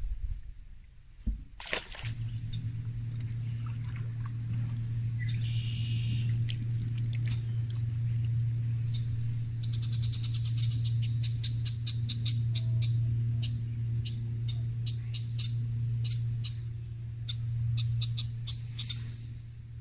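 Red-winged blackbirds giving short, sharp alarm calls again and again, thickest in the second half, a sign of agitation near their nest. A steady low hum runs underneath from about two seconds in, after a brief splash-like burst.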